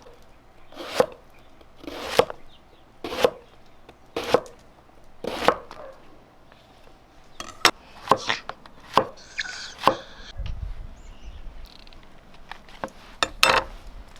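Chef's knife chopping on a cutting board. Five evenly spaced cuts come about a second apart, then a quicker run of cuts, then a couple more near the end.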